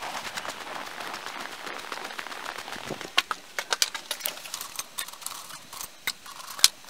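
Footsteps crunching through snow. About three seconds in they give way to a run of sharp clicks as steel nails clink and rattle against each other in a plastic bucket while a hand sorts through them.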